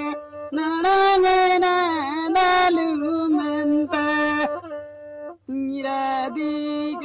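Background song: a singing voice holding long, steady notes with short slides between them, breaking off briefly about five seconds in before going on.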